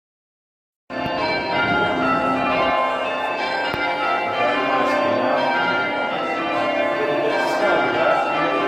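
Church bells ringing rounds in full-circle change ringing, the bells striking one after another in a steady repeating sequence. The ringing starts suddenly about a second in, after near silence.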